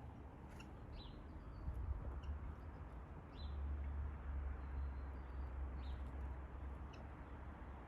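Small birds giving short, high call notes three times, with a few faint ticks between, over a steady low rumble.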